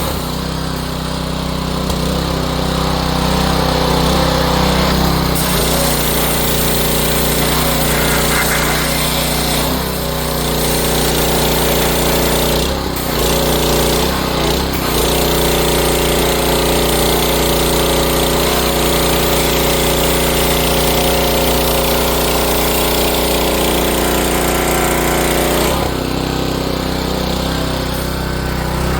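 3600 psi gas-engine pressure washer running steadily, with its engine note shifting a few times and dipping briefly around the middle.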